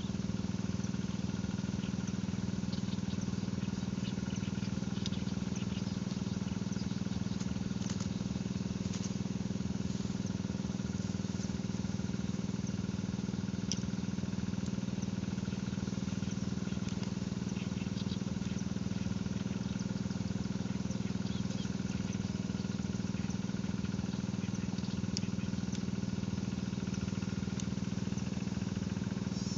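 A motor running steadily with an even, unchanging low hum, with faint scattered clicks above it.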